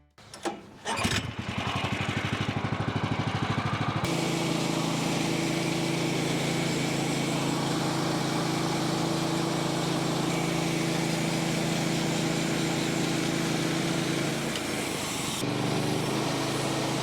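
An engine starts, runs with a fast pulsing idle, then about four seconds in rises to a steady, higher-revving run. It drops briefly near the end and then picks back up.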